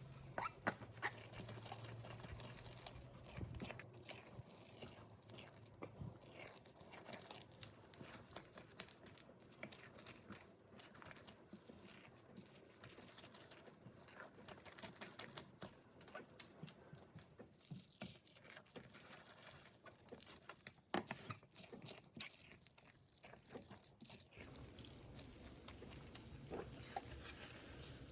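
Faint, irregular small clicks and scrapes of food and kitchen utensils being handled, with a low hum in the first few seconds and again near the end.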